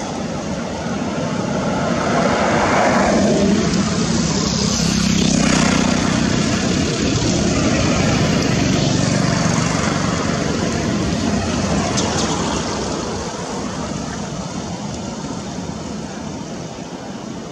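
A passing engine: a motor noise that swells over the first few seconds, stays loud for several seconds and then slowly fades away.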